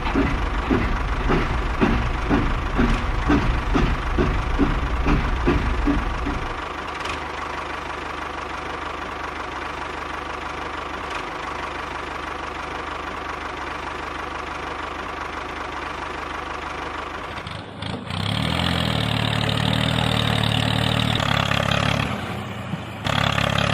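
Tractor engine running with a regular puttering knock for the first six seconds, then settling into a steadier hum. About eighteen seconds in, it gives way to a louder engine drone of a different pitch.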